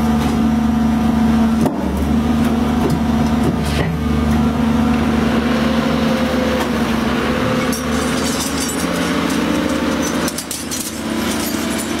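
Hydraulic drive of a 1100-ton scrap shear baler running steadily under load: a constant machine hum with a low tone, as the ram pushes a mass of scrap rebar through the shear. A few short metal knocks from the scrap are heard along the way.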